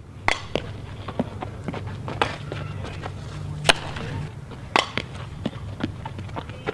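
Field sound of a softball fielding drill: irregular sharp knocks and claps of a ball meeting bat and glove, the loudest about three and a half seconds in and again near five seconds, over a low steady hum.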